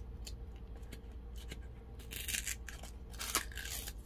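Printed paper seal being picked and torn off the mouth of a plastic glitter jar by fingernail: a few short, scratchy tearing sounds, the longest around two seconds in and again just after three seconds.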